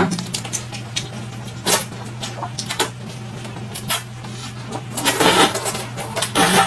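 Chewing and crunching food close to the microphone: irregular short crunches and clicks, with two longer noisy bites near the end, over a steady low hum.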